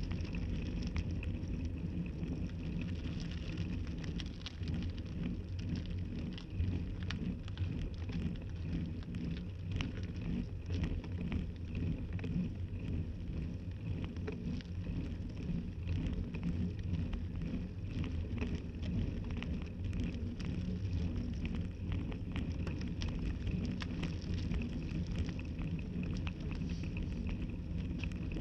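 Bicycle tyres rolling up a coarse chip-surfaced lane, heard through a handlebar-mounted camera: a steady low rumble of road noise with many small rattling clicks.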